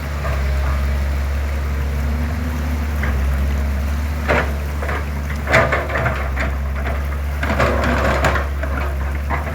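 Excavator's diesel engine running steadily, with a few short knocks and scrapes, the loudest about halfway through and another cluster near the end.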